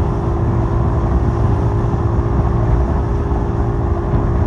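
Boat engine running steadily at sea, a constant low rumble with a steady drone.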